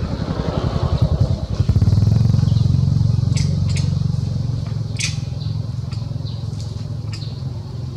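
A motor engine running nearby, growing louder about two seconds in and then slowly fading, with a few short high-pitched ticks over it.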